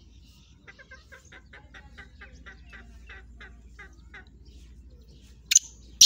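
Four-month-old black francolin (kala teetar) giving a run of about a dozen soft, short, evenly spaced notes, about four a second. About five and a half seconds in come the first loud, harsh notes of its call.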